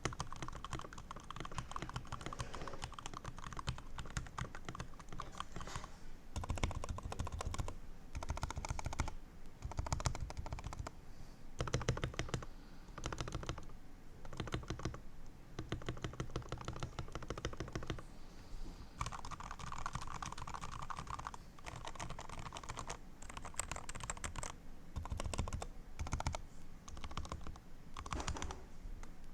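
Typing on a HyperX Alloy Origins Core TKL mechanical keyboard with linear red switches and pudding keycaps, its stabilizers lubed with dielectric grease: rapid runs of keystrokes with denser, louder stretches every few seconds.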